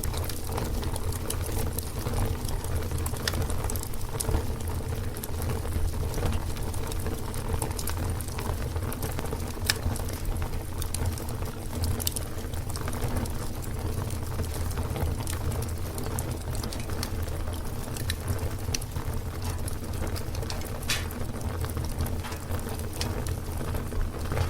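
Fire burning with a steady low rumble, broken by scattered sharp crackles and pops.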